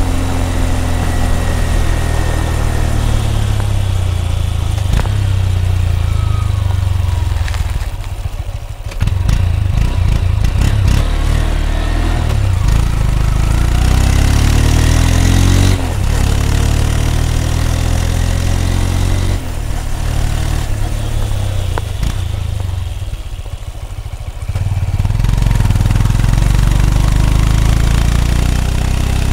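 Honda CB200X single-cylinder engine and exhaust on the move, the note rising and falling as the throttle is opened and eased. It quietens as the throttle is closed about eight seconds in and again for a few seconds from about twenty seconds in, then pulls again.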